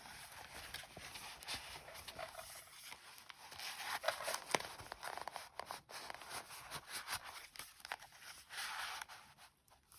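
Paper and card rustling and scraping, with scattered light taps and clicks, as a journal page is handled and pushed into the binding of a handmade junk journal.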